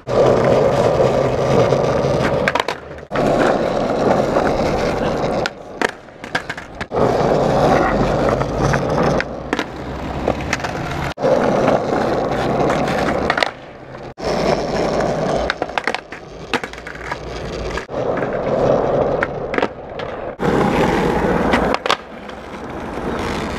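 Skateboard wheels rolling on rough asphalt, with sharp knocks of the board popping and clattering on the ground as fakie bigspin kickflips are tried. The rolling stops and starts abruptly several times.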